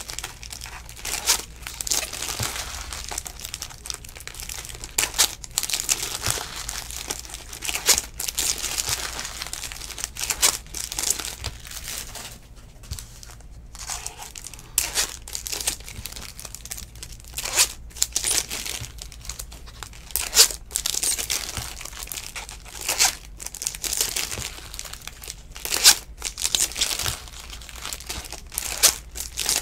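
Foil trading-card pack wrappers crinkling and tearing as packs are ripped open, with the cards rustling as they are handled. Irregular rustles go on throughout, with a short lull about twelve seconds in, over a steady low hum.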